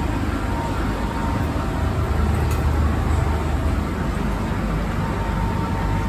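MTR M-train electric multiple unit giving a steady low rumble and rush of noise, with a faint thin tone now and then.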